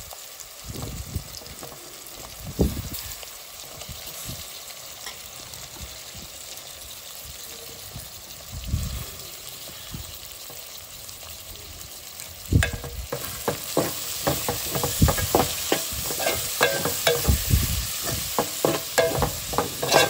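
Dried squid pieces and onion-tomato masala sizzling in oil in a metal pot. A little past halfway a ladle starts stirring, with quick, repeated scraping strokes against the pot, louder than the sizzle.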